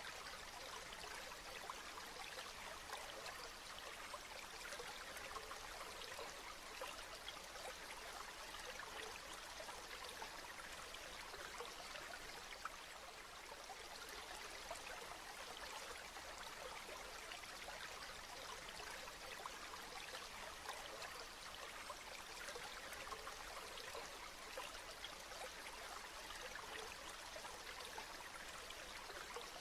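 Steady rain falling: an even hiss made of many tiny drop ticks.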